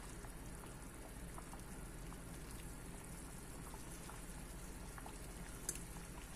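Kaong (sugar palm fruit) in syrup with pandan leaves at a rolling boil in a large pot: a steady bubbling with scattered small pops, while a thin stream of liquid is poured in.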